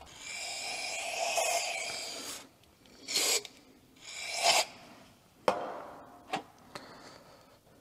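Metal carburetor parts scraping and rubbing as they are worked by hand, then two short hissing bursts of aerosol brake cleaner sprayed through its straw into the carburetor body, followed by a few light clicks of parts set down.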